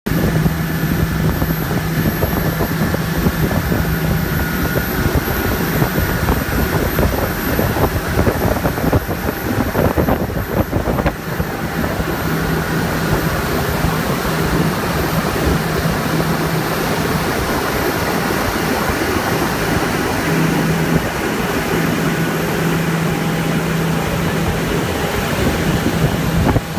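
Tour boat's engine running steadily under way, a low hum that fades in and out, over a constant rush of wind and churning wake water.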